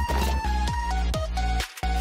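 Background music: a steady beat of short synth notes over heavy bass, dropping out briefly near the end.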